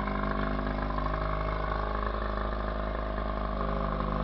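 Johnson 20 hp two-stroke twin outboard motor running steadily, freshly rebuilt with its ignition timing just set.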